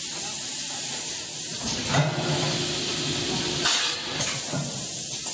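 Automatic pouch packing machine running, a steady hiss, with louder surges about two seconds in and again near the four-second mark as it cycles.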